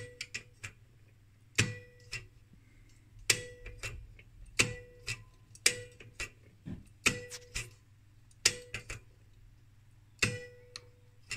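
Rohde & Schwarz DPR attenuator's step switch being turned through its positions: a sharp metallic click at each detent, ringing briefly, about eight steps roughly a second and a half apart, each followed by a few lighter clicks.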